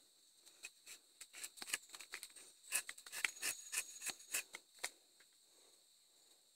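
A rubber-tapping knife shaving a thin strip of bark from the tapping cut on a rubber tree trunk. It makes a quick run of short scraping clicks that stops about five seconds in.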